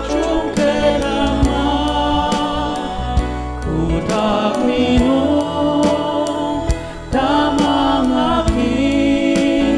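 Voices singing a gospel hymn in the Ao language, held notes sliding between pitches over an accompaniment with a steady beat.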